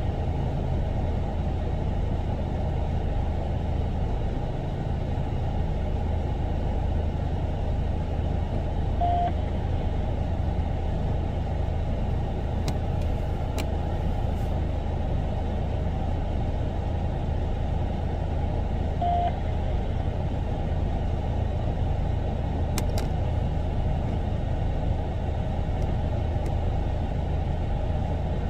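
Steady low rumble of vehicles and street traffic. A short, single-pitched beep sounds twice, about ten seconds apart.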